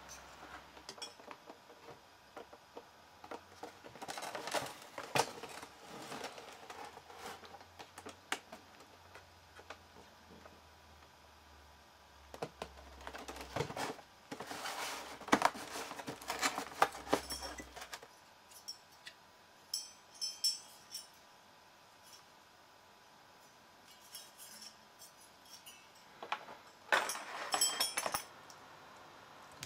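Hands handling a CPU cooler and its cardboard box: scattered clicks, taps, light clinks and rustles, with busier bursts about four seconds in, around the middle and near the end.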